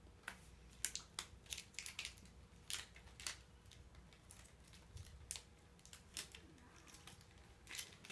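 Plastic candy-bar wrapper crinkling as it is handled, in a faint, irregular series of sharp crackles.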